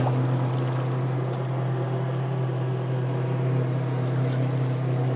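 A boat's outboard motor running steadily at one low pitch, over the rush of the river current.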